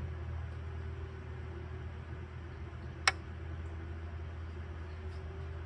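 Steady low hum with an even hiss, broken by one sharp click about three seconds in.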